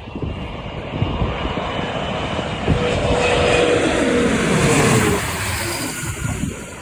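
Bombardier CRJ-700's two rear-mounted turbofans at go-around thrust, passing close by. The jet noise swells to a peak about midway with a steady whine, which then drops in pitch as the jet passes and fades. Wind buffets the microphone throughout.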